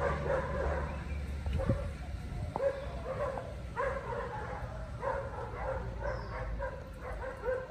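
Dog barking repeatedly, a short bark every second or so.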